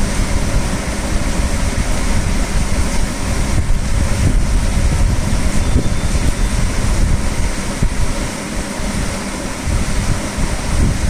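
Steady rushing background noise, strongest in the low end, with a faint steady hum running through it.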